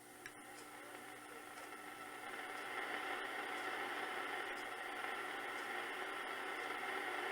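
Static and hiss from a National SW-54 shortwave receiver, swelling louder over the first three seconds and then steady, with one sharp click about a quarter second in and faint wavering whistles under the noise. The set receives weakly and has not yet been aligned.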